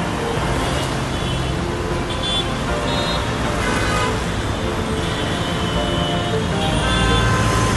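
Road traffic noise from cars and other vehicles moving in slow traffic, mixed with background music.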